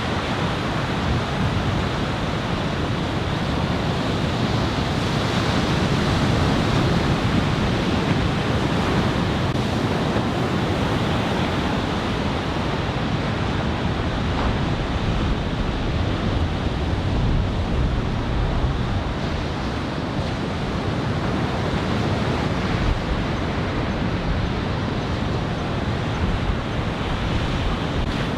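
Ocean surf from a building typhoon swell: waves breaking and washing in a steady rush that swells slowly, with wind on the microphone.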